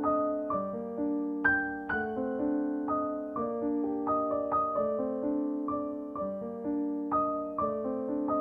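Background piano music: a gentle melody of single struck notes, about two a second, each ringing and fading.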